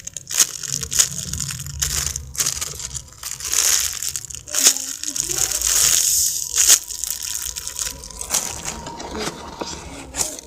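Plastic packaging crinkling and rustling as it is handled, with repeated sharp crackles.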